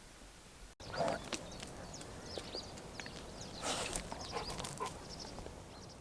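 Birds chirping outdoors in short, high, quick calls, starting after a sudden cut about a second in, with a brief rustle near the middle.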